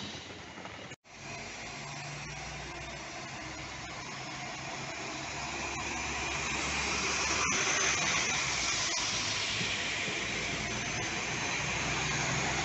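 SA139 diesel multiple unit pulling out past the platform: a steady low engine hum with a hiss of air and wheels, growing louder as the unit draws level and passes. The opening second is the tail of a passing PKP Intercity train, cut off sharply.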